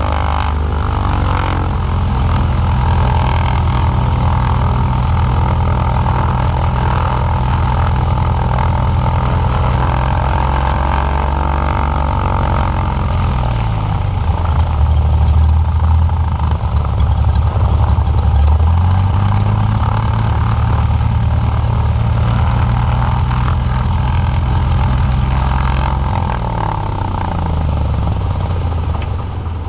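Piston engine and propeller of a single-engine light aircraft running at low power on the ground. The engine note drops about 13 seconds in, climbs back about six seconds later, and drops again near the end.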